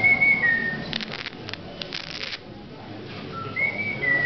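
Whistling: a long held note that steps down slightly and stops in the first second, then two more short whistled notes near the end. In between comes a short run of sharp clicks.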